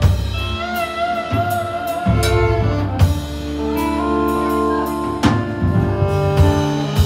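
A live country band plays an instrumental passage. A fiddle holds wavering notes over electric and acoustic guitars, bass and drums, with sharp drum and cymbal hits every second or two.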